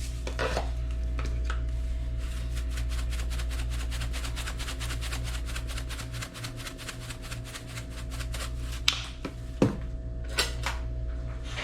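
Hand-twisted spice grinder seasoning chicken in a pan: a long run of rapid, even clicks as the mill is turned, then a few sharp knocks near the end. A steady low hum runs underneath.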